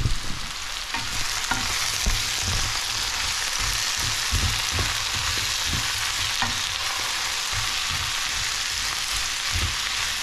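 Mixed vegetables (carrot, broccoli, cauliflower and onion) sizzling in oil in a non-stick frying pan as they soften and brown. They are stirred with a wooden spoon, with dull knocks now and then.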